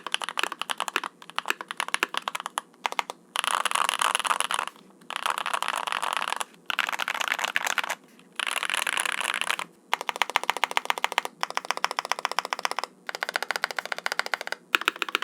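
Typing on a mechanical keyboard with stock Gateron Cream Soda long-pole linear switches: quick runs of key clacks, broken by short pauses every second or two.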